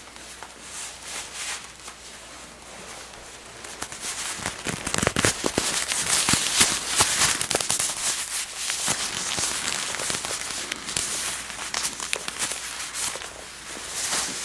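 Leather gloves rubbed, squeezed and flexed close to the microphone, a dense crackling and creaking of leather. Softer at first, growing louder about four seconds in.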